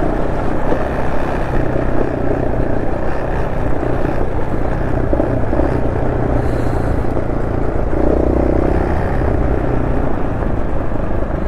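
Honda SL230's air-cooled single-cylinder four-stroke engine running at a fairly steady speed under way, breathing through an aftermarket muffler on a rejetted carburettor (130 main jet, 38 pilot jet).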